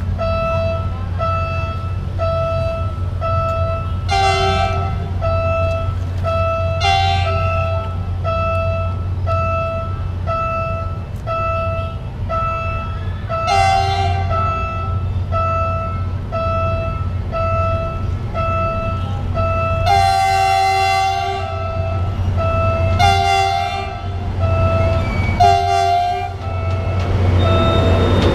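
Horn of the INKA-built diesel-hydraulic locomotive DHL 9001 sounding six blasts, the fourth held longer than the rest, over the steady rumble of the running locomotive. Throughout, a warning signal rings at an even pace, about one and a half times a second.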